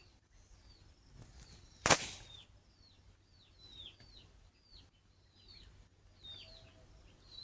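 A bird chirping: a run of short, high chirps, each falling in pitch, about one a second. A single sharp click about two seconds in is the loudest sound.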